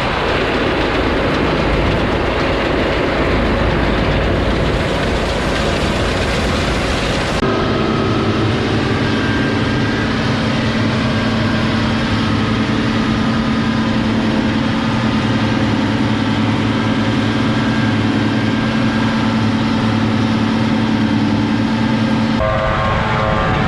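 Loud, steady machine engine noise. About seven seconds in it changes abruptly to a steady drone with a strong held tone, and it changes again near the end.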